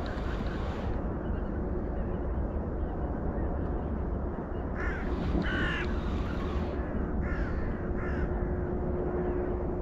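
Crows cawing: several short, hoarse caws in two groups about halfway through and shortly after, over a steady low background rumble.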